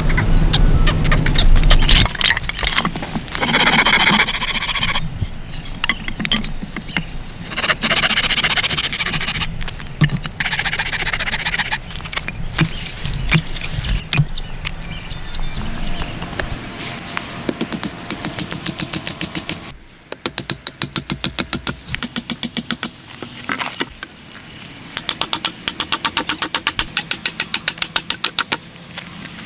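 Wooden poles being cut with a hand saw, in bursts of quick, regular strokes broken up by cuts in the edit.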